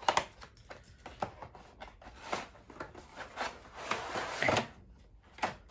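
Board game contents being handled: cards, card sheets and packets rubbing and rustling, with scattered light taps and knocks.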